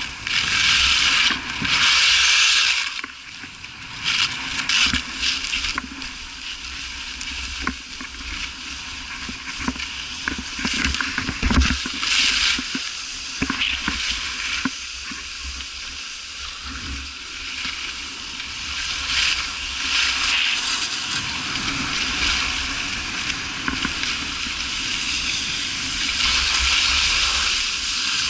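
Snowboard or ski edges hissing and scraping across packed snow on a fast downhill run, swelling and fading with each turn, over a low wind rumble on the microphone.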